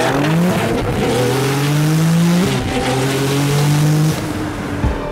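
Car engine at full throttle, pulling hard through the gears. Its pitch climbs, drops at each upshift, then climbs again, with shifts about every one and a half to two seconds. Heavy wind and road noise come through, as heard from inside a pacing car. Music hits come in right at the end.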